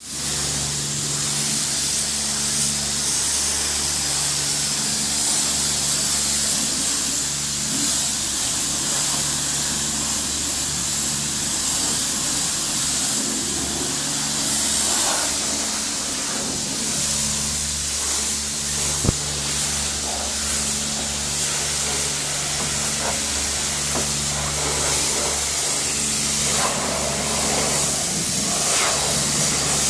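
Self-service car-wash pressure wand spraying water onto a car's bodywork: a loud, steady hiss, over a low hum that switches between pitches every second or two.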